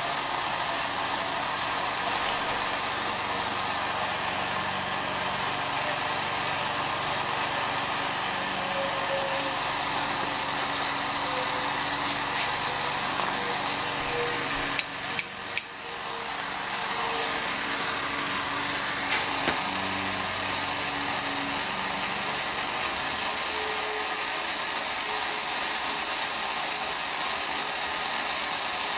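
Steady workshop background noise throughout. About halfway through come three sharp clicks in quick succession, and a couple of fainter ones a few seconds later, from metal hand tools being worked: pliers used on the wire splice.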